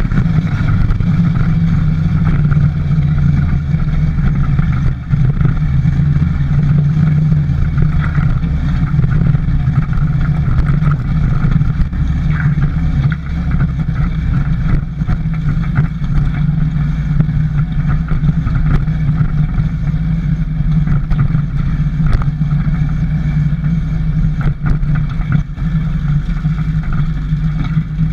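Small motorbike engine running at a steady pitch while riding, picked up close by a handlebar-mounted microphone.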